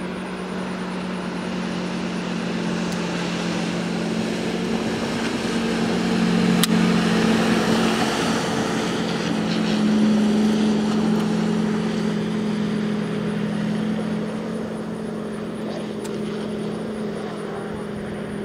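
Ski tow boat's inboard engine running at steady speed as it passes, growing louder towards the middle and then fading, with the hiss of the skier's spray and wake.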